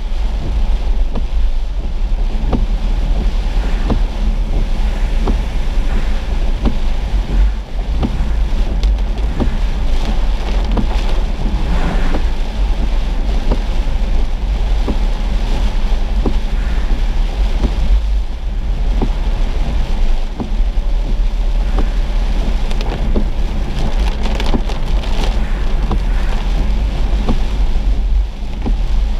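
A car driving through heavy rain, heard from inside the cabin: a steady, deep rumble of road and wind, with rain striking the windshield.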